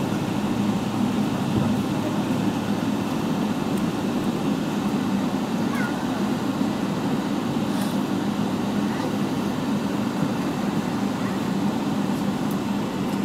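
Steady low rumble inside the cabin of a Boeing 777-300ER rolling down the runway just after landing, spoilers up and the aircraft slowing.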